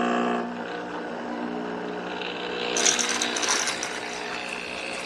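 De'Longhi La Specialista espresso machine running its priming cycle: the pump's steady hum drops in level about half a second in and carries on quieter, then a loud hiss with crackling joins from about three seconds in.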